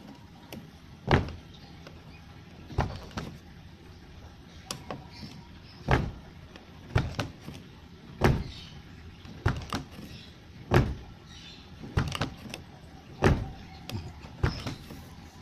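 A car door being shut again and again, each close a sharp latching knock, the strongest coming about every two to two and a half seconds with lighter clicks between. The door latch has just been packed with grease to soften the metal-on-metal knocking, and the closing is fairly smooth ("lebih halus").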